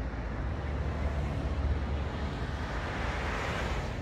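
Steady outdoor city background: distant traffic noise with wind rumbling on the phone's microphone, the traffic swelling about three seconds in.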